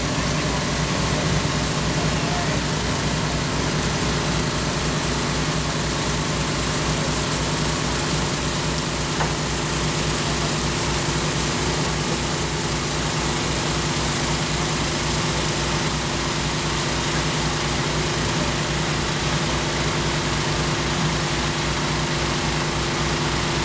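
An engine running steadily at constant speed, with an even low throb and a steady hum and hiss.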